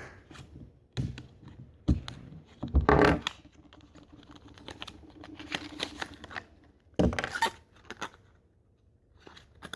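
Small retail box of a 2x2 puzzle cube being opened by hand: a few sharp knocks and clicks of the packaging, with a quieter stretch of rubbing and rustling in the middle as parts slide apart.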